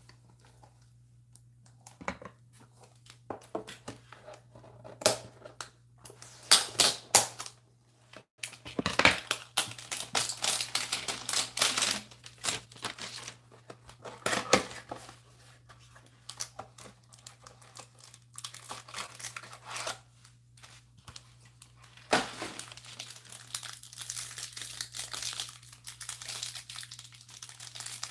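Trading-card hanger boxes being opened: cardboard handled and torn, and the cards' cellophane wrappers crinkled and ripped open, in spells of crackling rustle with clicks and taps between.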